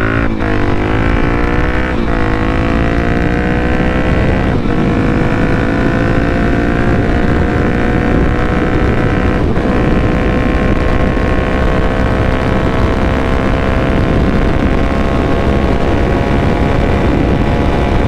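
Suzuki DR-Z400SM's single-cylinder four-stroke engine through an FMF PowerCore 4 exhaust, pulling under way. It shifts up about four times in the first ten seconds, the note dropping at each change and climbing again, then holds a steady cruising note that rises slowly in pitch.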